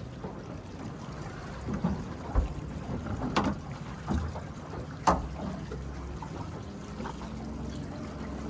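Water lapping around a small fishing boat, with wind on the microphone and a few sharp knocks; the loudest knock comes about five seconds in.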